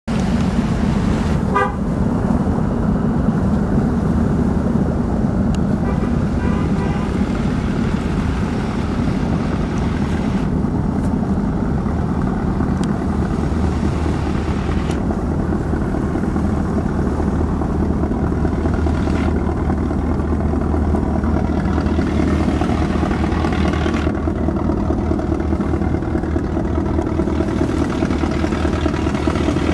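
A boat's diesel engine running with a steady, loud drone. Brief higher toots sound over it near two seconds in and again around six seconds.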